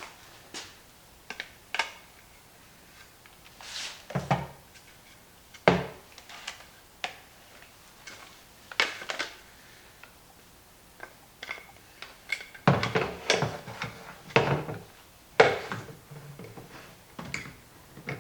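Irregular knocks, clatters and scrapes of hand tools and a plastic compost tumbler lid being worked on, with a busier run of handling noise about two-thirds of the way through.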